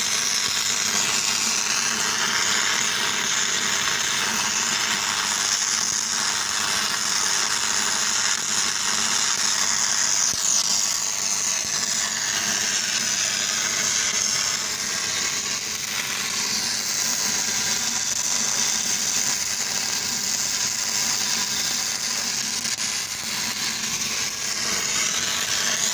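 Stick (shielded metal arc) welding with an E6010 electrode: the arc sizzling steadily as the root pass of a pipe butt joint is laid.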